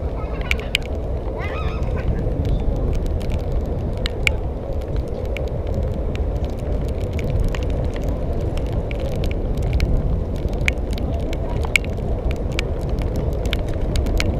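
Steady wind and road rumble from riding an electric scooter, with scattered sharp clicks. A short honk-like sound comes in near the start.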